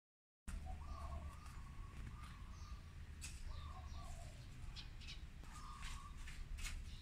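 Faint bird calls: a bird gives a short low call about four times, among scattered high chirps and soft clicks, over a steady low background rumble.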